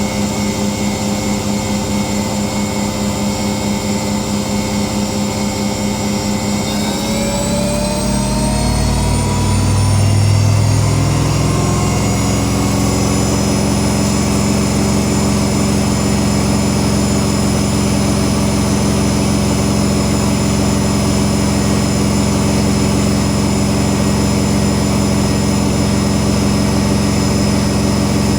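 Whirlpool Indiana 1400 washing machine on its spin cycle: the motor and drum run steadily, then about seven seconds in the whine rises in pitch as the drum speeds up to its top 1400 rpm spin, with a brief low rumble partway through, and then holds steady at the higher speed.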